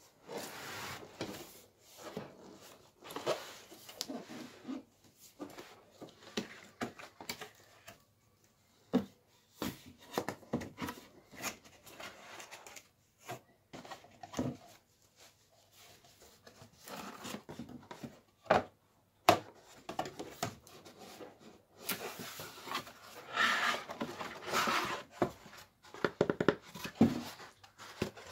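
Cardboard packaging handled by hand: box flaps and cardboard sheets rustling and scraping, with scattered knocks and clicks as the box is opened and a moulded pulp insert is lifted out.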